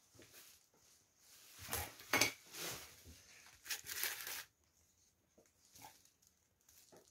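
Tools being handled on a worktable: a few short bursts of scraping and rustling as a scraper blade and a flat sheet are picked up and worked, the loudest about two and four seconds in.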